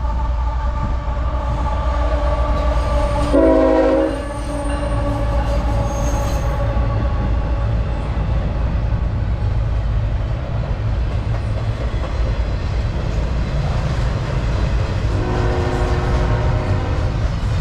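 Double-stack intermodal freight train rolling across a low bridge with a steady rumble, its air horn sounding a chord of several tones: a long blast loudest about three seconds in, and another blast near the end.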